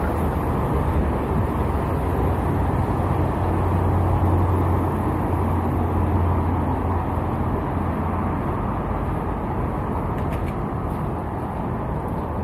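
Steady low rumble of a vehicle in motion, with a strong deep hum and noise beneath it, swelling slightly partway through.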